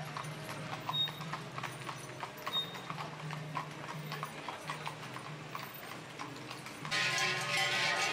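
Two draft horses' hooves clip-clopping on a wet paved road as they pull a wooden wagon. About seven seconds in, it cuts abruptly to many livestock bells ringing at once, louder.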